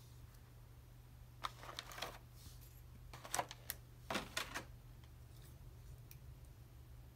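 Small plastic clicks and rustles in three short clusters as a plastic action figure and its clear plastic packaging tray are handled, over a low steady hum.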